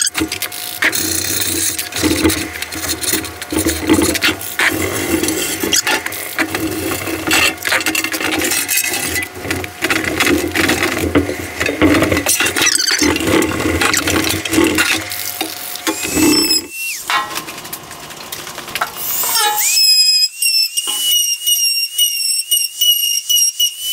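Steel tool-chest drawer being rubbed and scrubbed by hand, making steady irregular scraping and rubbing with small knocks. Near the end this gives way to a run of short, high squeaks of rubbing on the metal.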